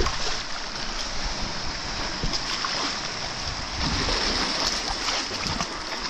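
Children splashing seawater against a rock with their hands in shallow water, over a steady wash of small waves.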